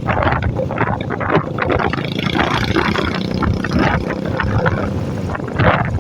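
Royal Enfield motorcycle engine running at a steady cruise while riding, with wind buffeting the microphone in uneven gusts.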